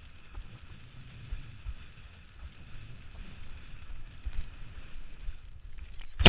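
Wind buffeting a camera mounted on a windsurfing boom, with water rushing and spraying past as the board skims across the water. At the very end a sudden loud knock.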